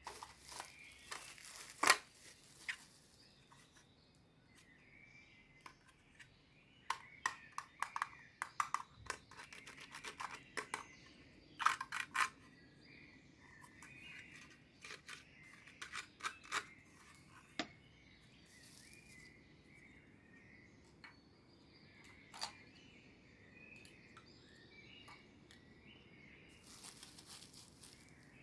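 Small plastic toy pieces being handled, clicking and tapping against each other and a hard surface, with a few sharper snaps and a short rustle of packaging near the end.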